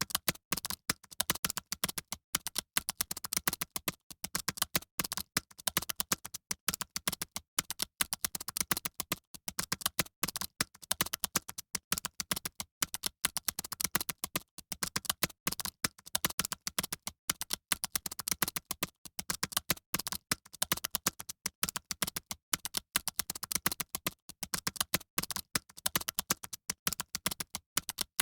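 Fast typing on a computer keyboard: a rapid, irregular stream of key clicks with brief pauses, the kind of sound heard in a typing exam hall.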